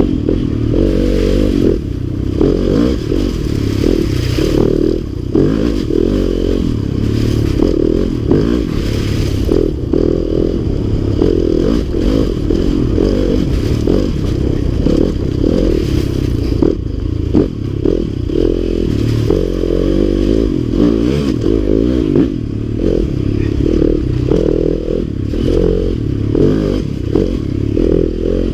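Yamaha dirt bike engine running loud under constantly changing throttle on a rough trail, revving up and down, with knocks and clatter from the bike bouncing over the ground.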